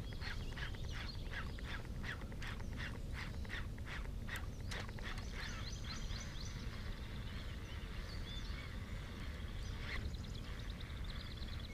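A duck quacking in a rapid, even series of about four calls a second, stopping about five seconds in, followed by faint high chirping of small birds.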